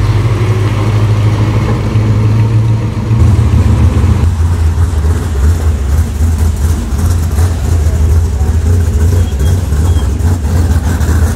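Classic car engines running at low speed as vehicles drive past one after another: first a vintage Dodge pickup, then a red 1930s hot rod sedan towing a small trailer. The deep engine note shifts about three seconds in as the second car takes over.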